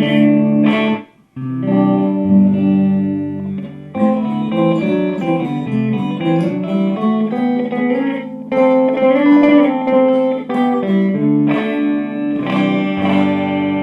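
Hand-built solid-body electric guitar with humbucker pickups played clean through a Fender Blues Junior tube amp: picked chords and melodic lines, with brief pauses about a second in and near four seconds.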